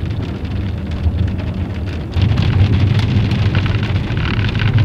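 Rain falling on a car, heard from inside the cabin, over a low rumble that grows louder about two seconds in.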